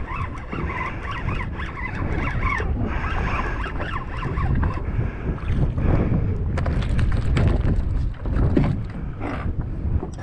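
Wind buffeting the microphone on a fishing boat, a heavy low rumble, with scattered knocks from about five seconds in.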